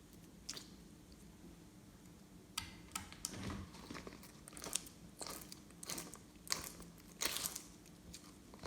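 Glossy slime being squeezed and kneaded by hand: irregular sticky crackles and clicks, sparse at first, then coming quickly from about two and a half seconds in.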